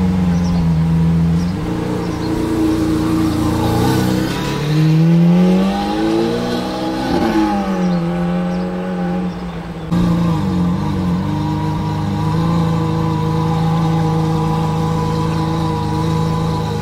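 Lamborghini Aventador Roadster's V12 through a Capristo exhaust, running at low speed. The revs rise and fall once about five seconds in, there is a sudden change about ten seconds in, and then it runs steadily at low revs.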